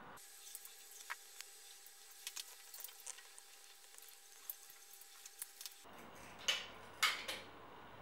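Faint scratching and small clicks of a knife blade worked under an adhesive reflective strip on a scooter's plastic fork cover, with a few louder scrapes near the end as the strip comes away.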